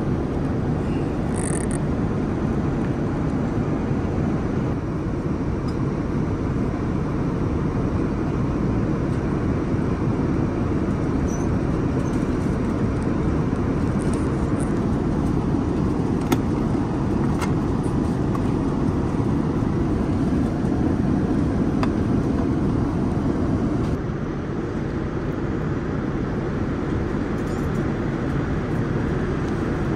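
Steady low rushing of a Boeing 787-9 airliner cabin in cruise flight, with a few faint clicks, the sharpest about halfway through.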